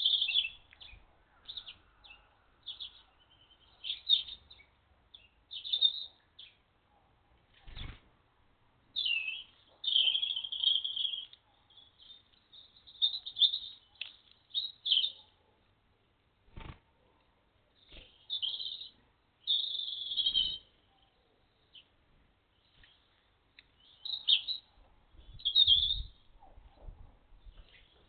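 Small garden birds chirping in many short, high calls, on and off, with a few short knocks in between.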